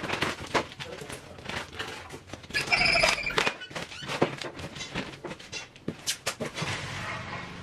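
Cardboard shipping box being torn open by hand: a run of sharp rips and rustles as the flaps and packing tape are pulled back and the packing inside is handled. About three seconds in, a brief high ringing sound lasting about a second.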